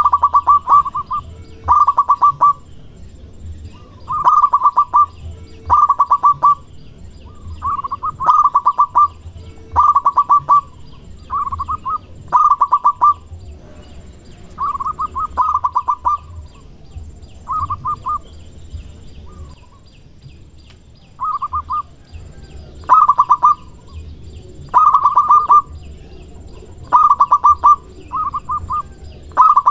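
Zebra dove (perkutut) cooing over and over, each phrase a quick run of staccato notes at about the same pitch, repeated every one to two seconds, with a longer pause a little past halfway.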